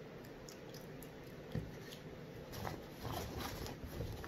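Plastic shopping bag rustling as it is handled and opened, with a light knock about a second and a half in.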